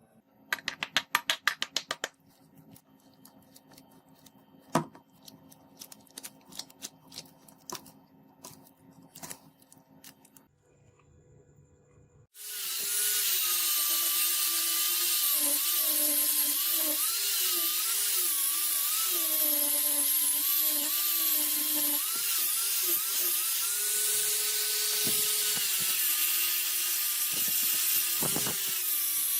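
A quick run of sharp clicks, then scattered lighter knocks. Less than halfway through, an electric power tool starts and runs steadily, its pitch wavering as it works.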